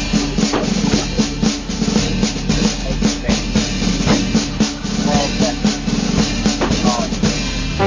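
Music with a fast, steady drum-kit beat, snare and bass drum hitting several times a second.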